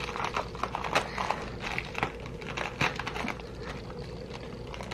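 Sticker sheets and packaging being handled, with irregular crinkles and light taps and clicks.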